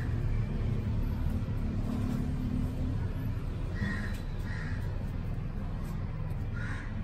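Three short high animal calls, about four seconds in, half a second later and near the end, over a steady low rumble.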